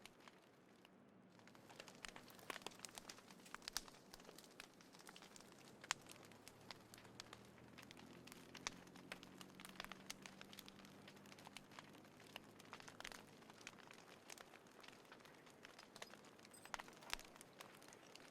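Small wood fire crackling, with irregular sharp pops and snaps, a few louder than the rest.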